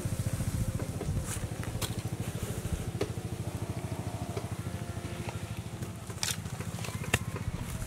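A small engine running steadily with a fast, even chugging beat, with a few sharp clicks over it.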